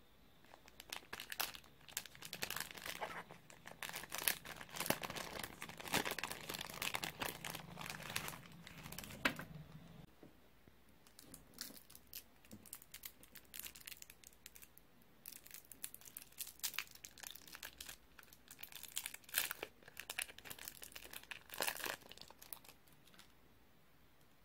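Clear plastic candy bag crinkling and tearing open, dense for the first ten seconds; then pink candy wrappers crinkling in scattered bursts as soft chewy candies are twisted out of them.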